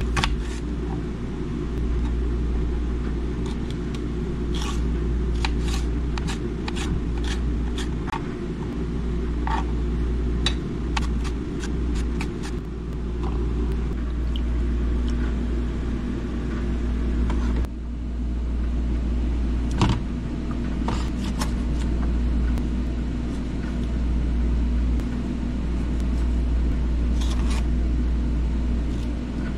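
Kitchen knife clicking against a plastic cutting board as vegetables are sliced, in runs of sharp taps, over a steady low machine hum. The taps stop for several seconds in the middle and start again near the end.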